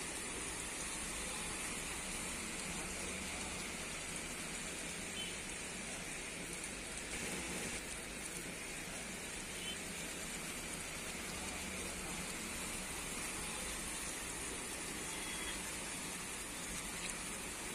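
Steady heavy rain falling on garden plants and wet paving.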